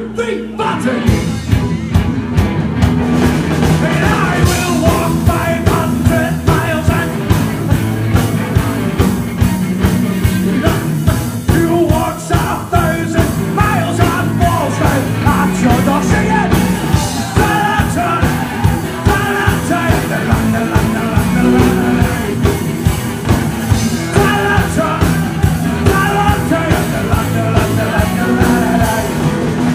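A live rock band plays loudly, with a steady, driving drum beat under bass and electric guitar.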